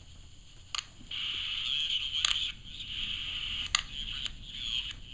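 AM radio tuned to about 530 kHz crackling with static from distant lightning: sharp clicks about four times, over a hiss that comes up about a second in. Heard through the radio's small speaker.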